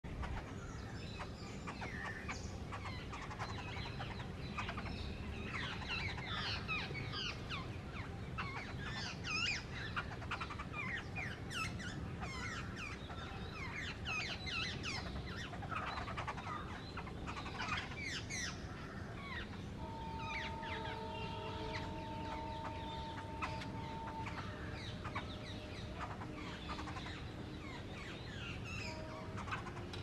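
A flock of babblers chattering as they feed: many harsh, rapid calls overlapping, thickest over the first two-thirds and thinning toward the end. A steady tone sounds faintly for a few seconds past the middle.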